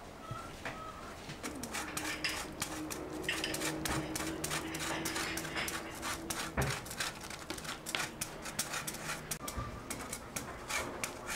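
Chocolate being grated over a cake on a hand grater: a fast, irregular run of short scraping strokes that starts about a second in. Birds chirp faintly at the start.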